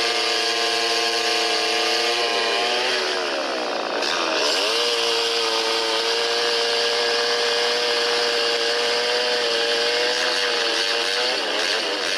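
Two-stroke chainsaw running hard at a steady high pitch, sagging and picking back up about three seconds in and again near the end.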